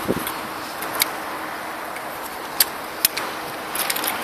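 A few sharp plastic clicks and taps from hands handling the chassis of an HSP Brontosaurus RC truck, over steady outdoor background noise.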